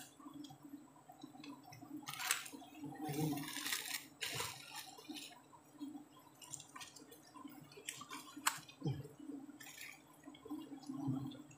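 Scattered soft rustles and sticky, wet squishing of a wild giant honeybee (Apis dorsata) comb being handled on its branch, with a few sharp clicks among them.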